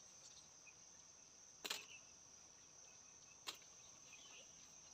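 Near silence with a faint, steady, high-pitched insect drone, and two short sharp clicks, one under two seconds in and one about three and a half seconds in.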